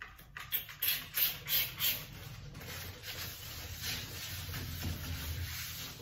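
Trigger spray bottle of glass cleaner spritzing several times in quick succession, each spray a short hiss. Then a paper towel rubbing steadily over a glass washing-machine lid.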